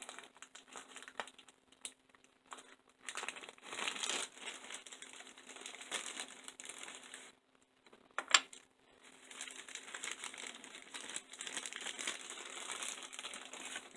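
Crinkling and rustling of hands handling small model-train parts and their packaging, with one sharp click about eight seconds in.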